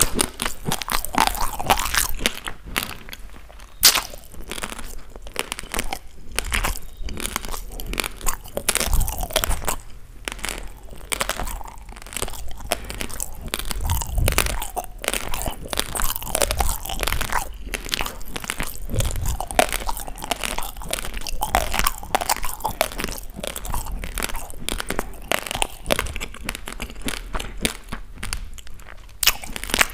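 Close-miked chewing of dry raw basmati rice: a dense, continuous crackle of hard grains being crunched between the teeth, with one especially sharp crack about four seconds in.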